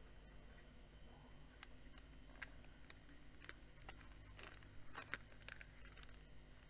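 Near silence with faint scattered clicks and taps of handling, about a dozen in all: an 18650 lithium cell and the fan's plastic housing knocking together as they are fitted.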